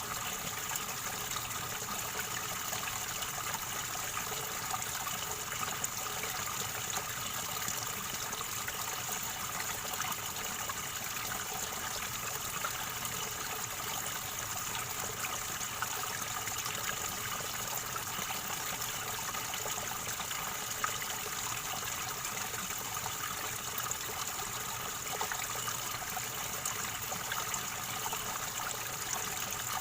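River water flowing and gurgling steadily over stones, an even rushing trickle that doesn't let up.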